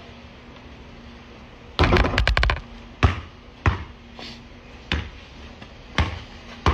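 Basketball bouncing on a paved driveway: a cluster of several quick knocks about two seconds in, then single bounces about once a second.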